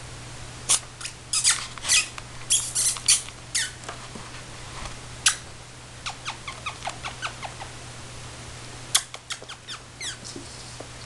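Sharp clicks and rattles as a kitten plays with a toy on a hard plastic base. They come thick and fast in the first four seconds, turn to lighter ticking about six to eight seconds in, and come back as a few more clicks near the end.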